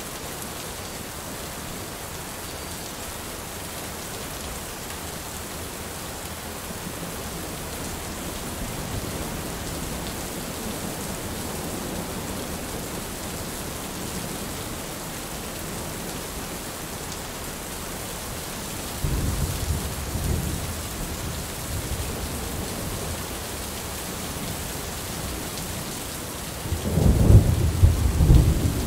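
Heavy rain falling steadily with thunder rumbling: one low rumble swells about two-thirds of the way through, and a louder peal of thunder builds near the end.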